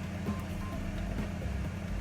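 Background music with a steady bass line and a few faint higher notes; no clear sizzling or utensil sounds.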